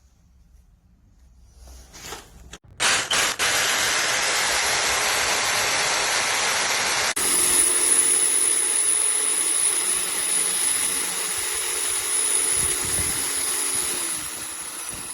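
DongCheng hammer drill starting up about three seconds in and running at speed. About seven seconds in the sound changes to a steady motor with a high whine, which fades near the end.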